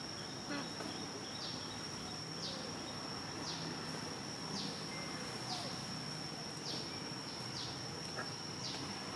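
Insects calling in the forest: a steady high-pitched drone, with a falling chirp repeating about once a second.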